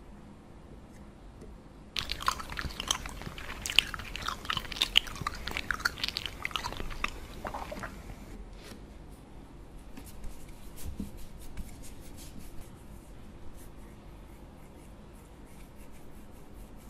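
Modelling dough squeezed and pulled apart by hands close to the microphone, giving sticky crackling and crunching clicks. The clicks come thick for about six seconds starting two seconds in, then thin out to scattered light clicks.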